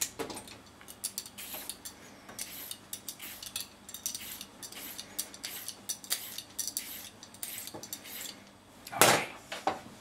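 Metal vegetable peeler scraping down a purple carrot in quick repeated strokes, with a louder clatter near the end.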